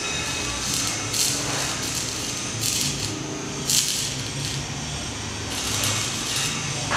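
Stick welding arc, powered by lithium batteries through jumper cables, crackling steadily, with louder surges of crackle every second or so.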